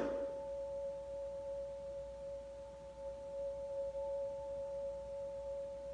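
A steady electronic tone, two pitches sounding together and held without change.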